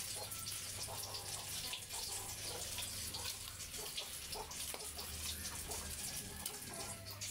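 Water sloshing and splashing in an aluminium pot as hands rub and turn whole fish to wash them, in many small irregular splashes, with a steady low hum underneath.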